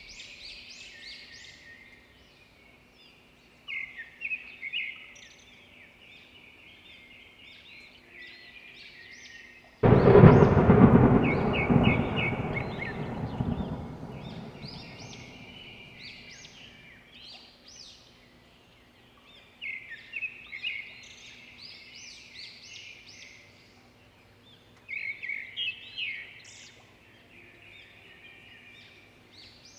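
Small birds chirping in quick repeated bursts. About ten seconds in, a sudden loud rumble breaks in and dies away over several seconds.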